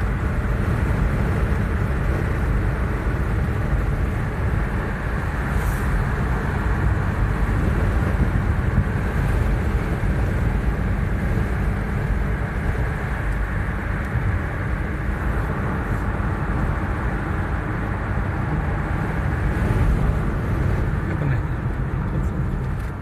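Steady road noise of a moving car heard from inside the cabin: tyres on pavement and the engine running at an even cruise, strongest in the deep end.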